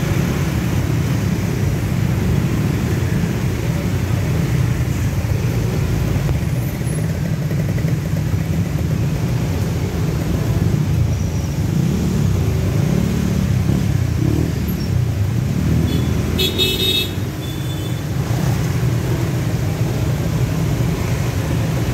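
Low, steady rumble of motorcycle and car engines crawling through a traffic jam. A vehicle horn honks briefly about three-quarters of the way through.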